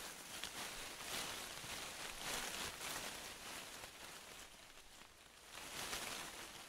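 Faint rustling in grass, uneven and louder about a second in and again near the end, over a quiet outdoor background.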